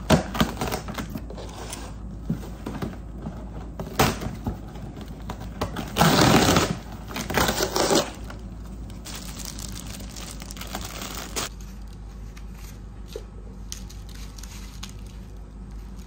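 Cardboard shipping box being opened by hand: packing tape tearing and the cardboard and its contents rustling and crinkling in bursts, loudest around six to eight seconds in, then quieter handling.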